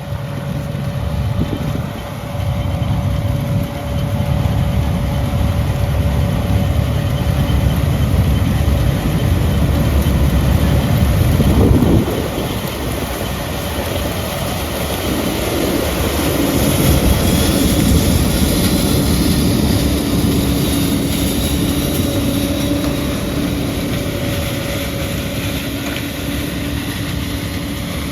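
John Deere combine harvester running steadily while harvesting sunflowers: a constant machine drone with a steady whine.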